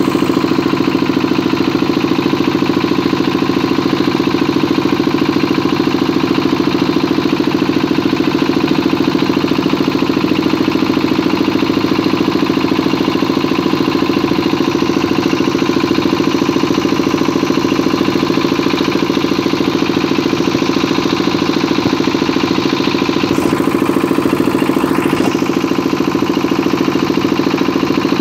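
Wooden boat's engine running steadily under way, loud and unchanging in pitch.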